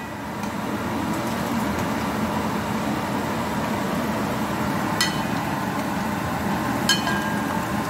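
Potato slices frying in oil in a pot, a steady sizzle, with metal tongs clinking against the pot twice, about five and seven seconds in.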